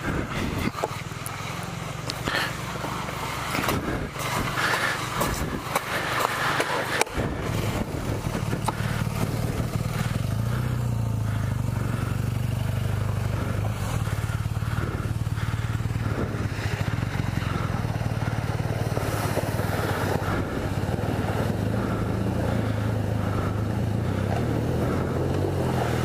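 Kawasaki KLR650's single-cylinder engine idling steadily, with scrapes and knocks from gravel and handling over the first seven seconds or so.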